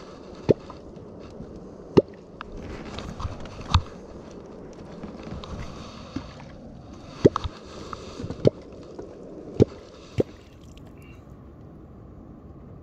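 Scattered sharp knocks and clatter of fishing gear against a boat, with light water sloshing and dripping between them.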